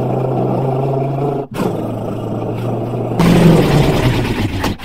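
Motorcycle engine sound effect, running with a steady low note. It cuts out briefly about a second and a half in and gets louder from about three seconds in.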